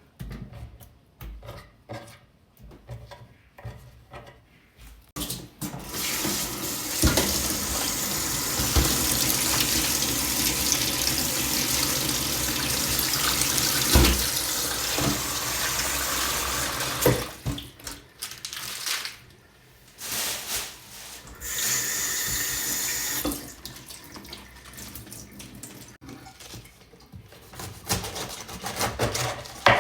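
Water tap running into a sink for about twelve seconds, splashing, then turned on twice more briefly. Light clicks and knocks of handling come before and after.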